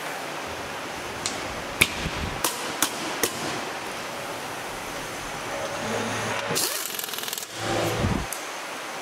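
A few sharp metallic clicks and taps as parts are fitted to a motorcycle, then near the end a short hissing burst from a hand-held pneumatic tool, over steady factory background noise.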